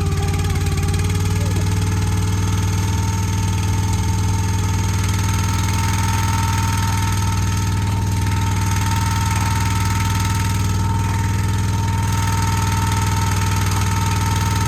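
Wolfe Ridge firewood splitter's engine running at a steady idle just after being started, with a steady high whine above the engine note.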